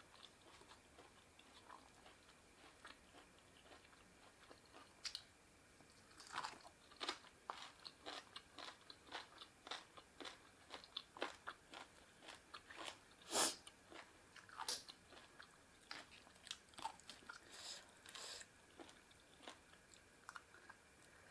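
A person chewing and biting into seafood papaya salad, with irregular crunches and wet mouth clicks that grow busier after the first few seconds; one crunch a little past halfway is the loudest.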